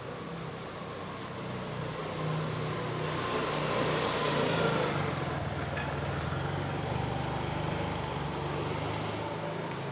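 A motor vehicle driving past, its engine hum and tyre noise growing louder to a peak about halfway through, then slowly fading.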